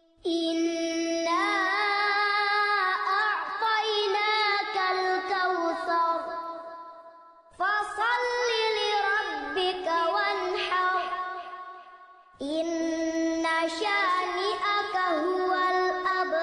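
A child's voice chanting Quranic Arabic recitation in long, ornamented melodic phrases, three of them with brief breaks between.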